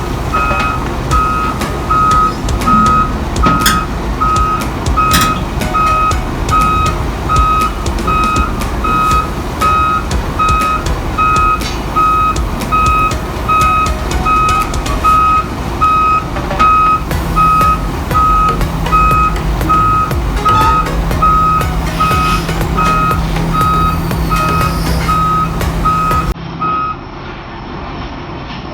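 A heavy machine's backup/travel alarm beeping steadily, a little faster than once a second, over a diesel engine running, with scattered clanks; near the end the beeping stops and the sound changes abruptly.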